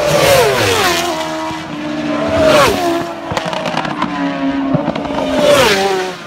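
Isle of Man TT road-racing motorcycles passing at racing speed one after another. Each engine note sweeps down in pitch as the bike goes by, with several passes in a few seconds.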